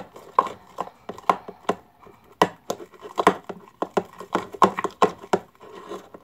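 Fluffy slime of glue, shaving foam and activator being stirred by hand: irregular sticky clicks and squelches, about two to three a second, as the mixture comes together into slime.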